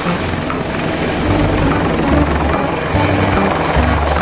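Steady helicopter rotor and engine sound, played as a sound effect for a toy helicopter, over background music with a stepping bass line.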